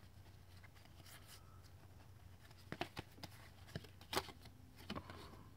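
Faint handling of a stack of trading cards: cards sliding against one another, with a few soft clicks and snaps as they are flipped, the sharpest a little past four seconds in.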